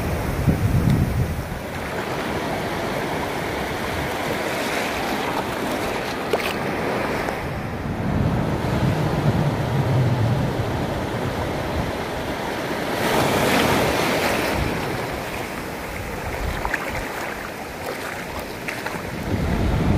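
Shallow surf washing up and draining back over a sandy beach, a steady hiss of breaking foam that swells several times, loudest about two-thirds through. Wind gusts rumble on the microphone.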